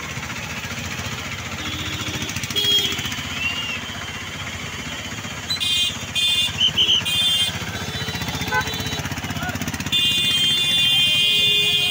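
Busy road traffic, a steady din of motorcycles and cars. Several short, high horn beeps come about halfway through, and a long horn blast starts near the end.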